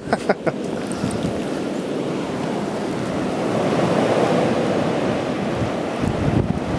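Snowstorm wind blowing against the microphone, a steady rushing noise that swells slightly around four seconds in. A few faint knocks right at the start.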